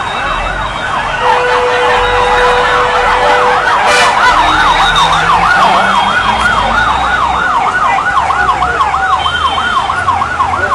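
Emergency vehicle siren in a fast yelp, its pitch swooping up and down about three times a second. A steady tone sounds alongside it for a couple of seconds early on.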